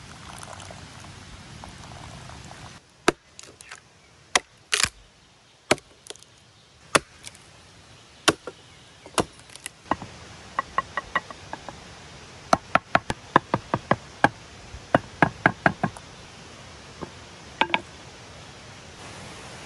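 Liquid poured into a wooden cup for the first few seconds. Then a long series of sharp wooden knocks, some single and some in quick runs, from hammering together a bench of wooden poles.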